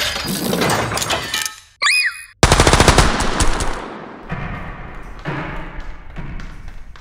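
Sound effects for a comic: a blade sliding out with a metallic shing and a brief ringing glide, then, about two and a half seconds in, a sudden loud burst of rapid machine-gun fire that trails off into scattered echoing shots.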